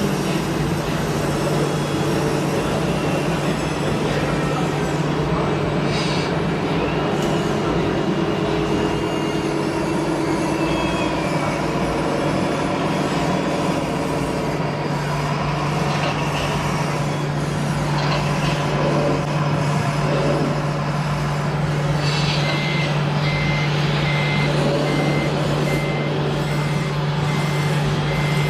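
Radio-controlled model trucks running, with a steady engine-like hum and occasional clicks and short hisses. About six seconds before the end a reversing beeper starts, beeping in even pulses a little over once a second.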